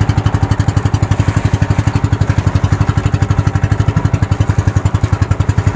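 Outrigger boat's engine running steadily while trolling, a rapid, even putter of firing pulses.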